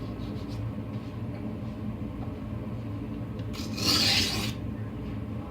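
A deboning knife's blade drawn once across a wet whetstone, a single rasping scrape about three and a half seconds in lasting about a second, over a steady low hum.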